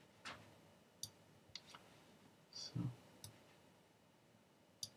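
Faint computer mouse clicks, about six single clicks at uneven intervals, with a short spoken "So" about halfway through.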